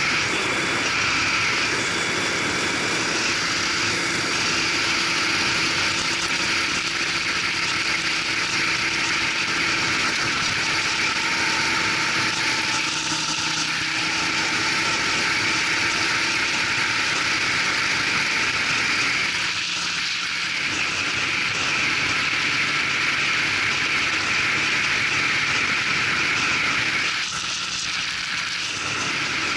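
Racing kart engine running under way at speed, mixed with rushing wind on the onboard microphone. The sound drops a little near the end as the kart slows.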